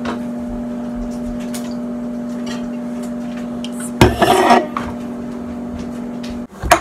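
Microwave oven humming steadily while heating leftover pizza, cutting off suddenly near the end. About four seconds in, an aluminium soda can is set down on the counter with a loud clatter.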